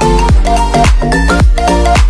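Background dance music with a steady kick-drum beat, about two beats a second, under a bright melodic line.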